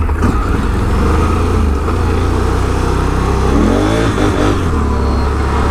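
Can-Am Renegade 1000 ATV's V-twin engine running, its note rising and falling briefly a little past the middle as it revs.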